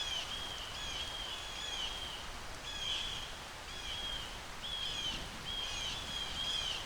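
A steady run of short, high-pitched chirping calls from wild animals, two or three a second, over a faint outdoor hush.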